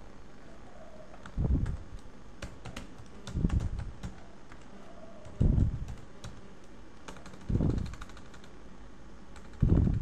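Computer keyboard typing: scattered key clicks, some in quick runs. A low, muffled thump about every two seconds is the loudest sound.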